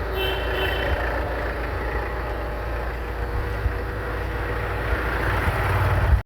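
Tata Safari SUV running on the road, with steady engine and road noise. It cuts off suddenly at the end.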